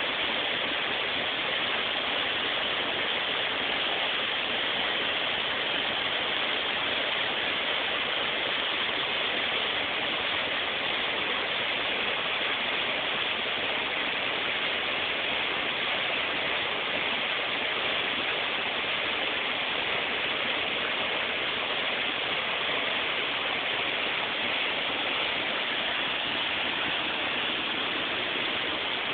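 High Force waterfall on the River Tees pouring into its plunge pool: a steady, unbroken rush of falling water.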